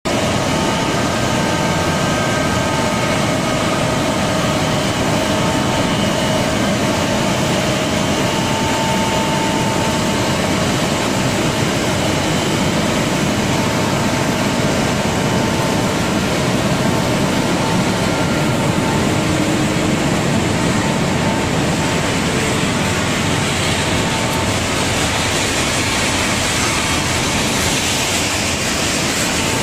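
Kibble dog-food production line running: a loud, steady machinery din from the extruder, dryer and conveyor, with faint steady hums.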